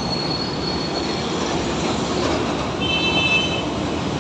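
Steady vehicle rumble with brief high-pitched squeals: one thin squeal at the start lasting about a second, and a second, fuller squeal about three seconds in.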